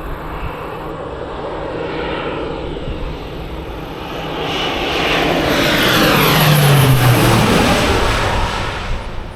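Crop-dusting airplane making a low pass overhead: its propeller engine grows louder from about four seconds in, peaks, and drops in pitch as it goes by.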